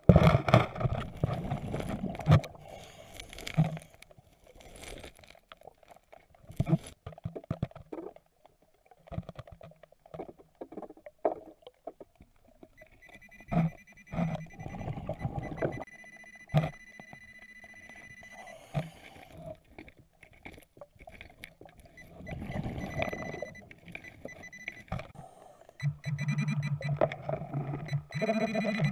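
Underwater, muffled through the camera housing: a diver's exhaled bubbles rush out in bursts of a couple of seconds, among knocks and clicks from the rocks. A handheld metal-detecting pinpointer sounds a steady high electronic tone for several seconds in the middle, then again near the end with a low buzz, signalling metal under its tip.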